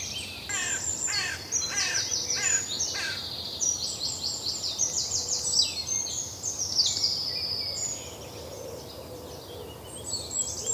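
Several songbirds singing at once: fast high trills and twitters overlap throughout, with a run of quick falling whistles in the first three seconds.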